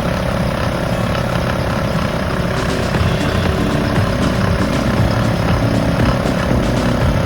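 Portable electric air compressor running steadily, a loud motor drone with a constant mid-pitched tone over a low rumble; it cuts in abruptly and stops abruptly.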